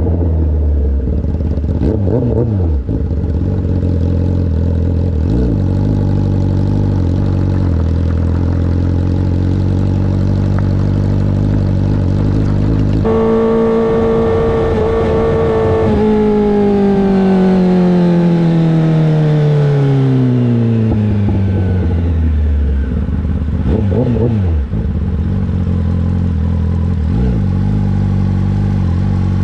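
2024 Kawasaki ZX-10RR's inline-four engine running at a steady low note, then accelerating about halfway through: the pitch jumps up and holds for a few seconds before falling steadily over several seconds as the bike rolls off and slows, settling back to a low steady note.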